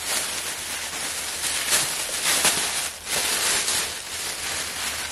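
Plastic packaging rustling and crinkling as an item is unwrapped by hand, with louder crinkles around two seconds in.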